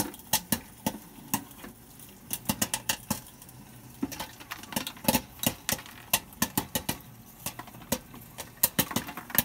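Popcorn kernels popping in the kettle of a Cuizen tabletop kettle-style popcorn machine: sharp irregular pops, a few at first and coming faster after about two seconds.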